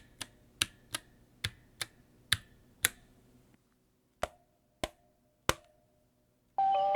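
Unlubed Durock POM T1 tactile switches in an NK65 keyboard being pressed: single keystrokes about two to three a second, then after a short pause three separate strokes, each followed by a faint ringing spring and leaf ping. Lo-fi music comes in near the end.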